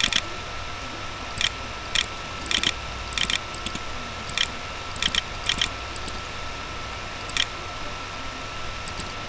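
Computer mouse clicking a dozen or so times at an uneven pace, some clicks in quick pairs, as letters are picked one by one on an on-screen keyboard. Underneath runs a steady electrical hum and hiss with a faint high tone.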